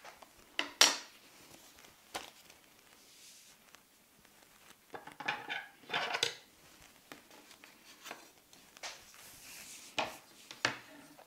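Handling sounds: pieces of leather and suede being shifted and rubbed on a wooden tabletop, with a scattering of sharp taps and knocks, a cluster of rustling about halfway through.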